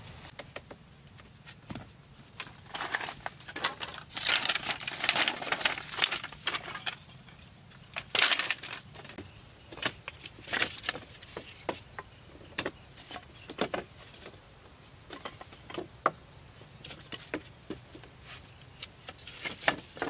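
Split bamboo and wooden sticks knocking, clicking and rustling as they are handled and laid in place on a lashed frame, in irregular bursts, busiest about four to seven seconds in.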